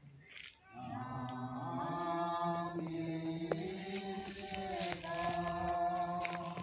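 Several voices singing a slow hymn together in long held notes, the singing resuming after a short break about a second in.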